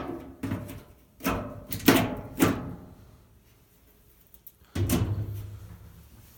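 Sheet-metal front panel of a Maytag Atlantis washer being fitted back onto the cabinet: a run of clunks and knocks, each with a short metallic ring, and a last one about five seconds in.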